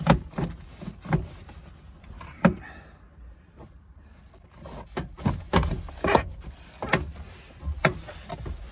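Plastic interior door trim panel of a 1997 Toyota Corolla being pulled and worked loose by hand: a scattered series of sharp knocks and clicks, more frequent in the second half.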